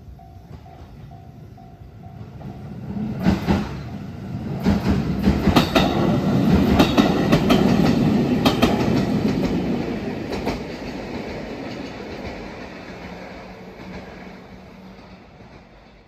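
Japanese level-crossing bell ringing in a steady pulse. Then a JR 213 series electric train passes, its wheels clacking over the rail joints. The sound builds to its loudest about halfway through and then fades away, leaving a low hum.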